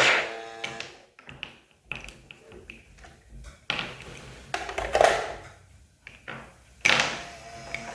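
Plastic toy pieces clicking and clattering as they are handled, with irregular taps and a few louder knocks.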